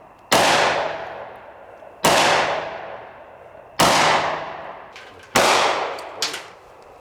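Four gunshots fired at a steady pace, about one every 1.7 seconds, each followed by a long fading echo, with a few fainter sharp cracks between the last shots.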